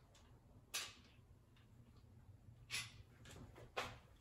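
Faint, sharp clicks and knocks of a metal bar clamp being handled and hung on a wall-mounted clamp rack: one about a second in, then three more close together near the end.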